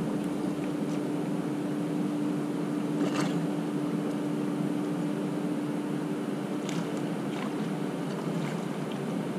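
Steady low machine hum holding one constant pitch over a low rush, with a few faint clicks about three seconds in and again near seven seconds.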